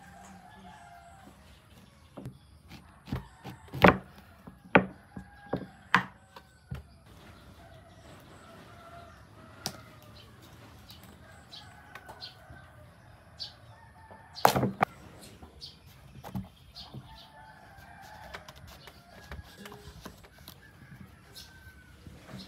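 Chickens clucking and a rooster crowing, cut across by a run of sharp knocks and clacks, the loudest about four seconds in and another midway.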